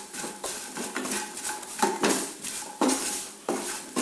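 A spoon stirring and scraping spice masala in a pan, knocking against the pan in irregular strokes about every half second to a second. The powders are being sautéed on low flame to cook off their raw smell.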